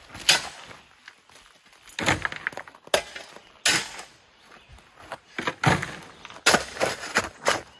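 Digging tool biting into rocky gravel: a series of sharp, irregularly spaced crunching strikes as steel hits stones and packed gravel.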